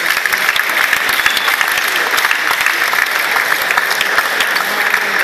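Crowd applauding: many hands clapping at once in a dense, steady spread of claps.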